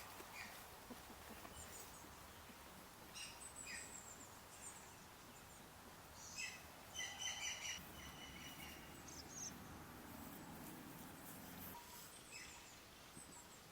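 Small birds chirping outdoors in short, scattered calls, with a busier, louder flurry of chirps about halfway through.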